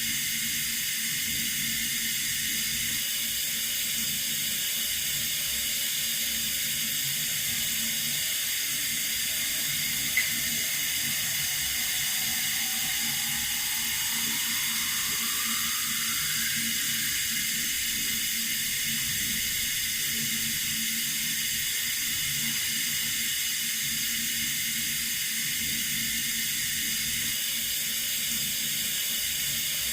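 Water running steadily from a tap, an even hiss. There is one brief click about ten seconds in and a faint rising whistle for a few seconds after it.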